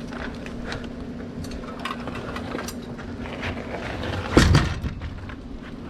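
Scattered light clicks and clanks, with one louder knock about four and a half seconds in, over a steady low hum.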